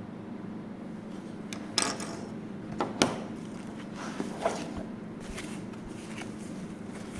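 A few short knocks and rustles from handling cardboard and plastic packaging, the sharpest about three seconds in, over a steady low hum.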